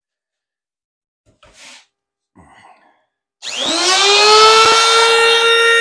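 Compact trim router switched on about three and a half seconds in: its motor whine rises quickly in pitch as it spins up, then holds a steady high note.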